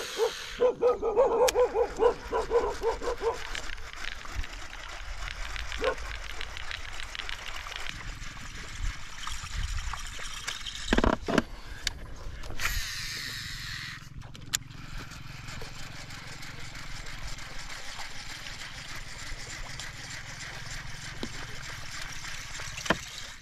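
A dog yipping in a quick run of short barks for the first few seconds, then a steady low rumble.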